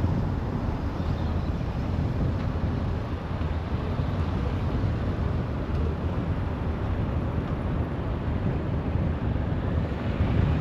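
Continuous motorway traffic: a steady rumble and rush of cars and other vehicles passing at speed, with some wind on the microphone. It swells slightly near the end.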